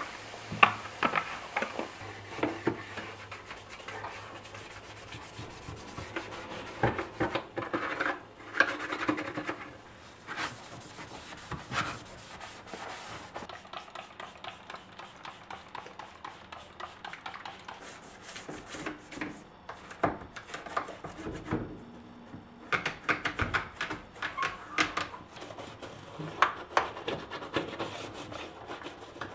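Hands scrubbing and wiping kitchen surfaces, with scattered light knocks and clatters of items being handled and set down.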